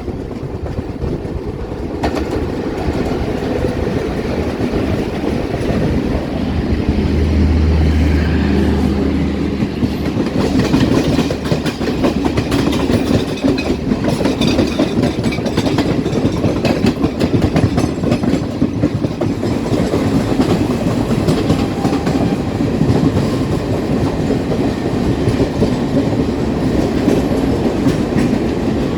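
Express trains running at speed on parallel tracks, heard from on board: a steady rumble with rapid clickety-clack of wheels over rail joints. A deep hum rises for a few seconds about seven seconds in.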